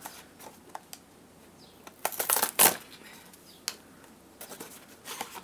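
Snack packaging crinkling and rustling as it is handled, in short scattered crackles with a louder burst of them about two seconds in and more near the end.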